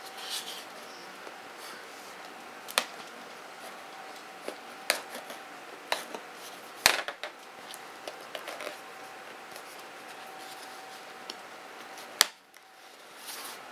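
Cardboard box handled while its seal sticker is cut with a small pointed tool: scattered clicks, taps and scratches, the sharpest about 7 and 12 seconds in, over a faint steady hum.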